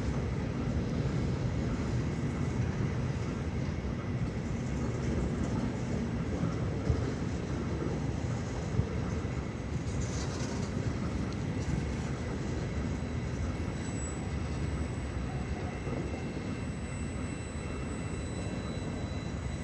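Train rolling past on the rails, a steady low rumble of wheels and cars, with two sharp clanks about 7 and 9 seconds in.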